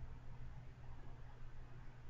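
Quiet room tone: a faint steady hiss with a low hum, and no distinct sound.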